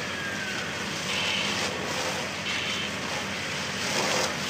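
Steady rushing noise of a fire hose dousing a burning van, with an engine hum underneath.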